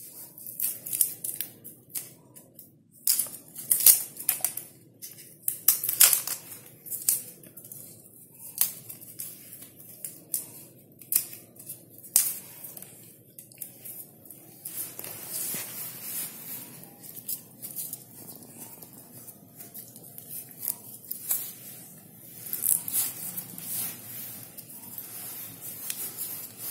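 Dry, brittle outer husk of a palmyra palm sprout being peeled off by hand: irregular short crackles and rasps of fibrous sheath tearing away.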